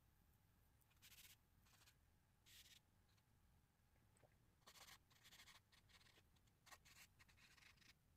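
Faint scratching of a writing tool on paper in a string of short strokes, as a signature is written.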